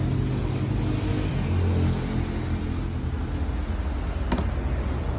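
Steady low mechanical hum, with a single sharp click about four seconds in.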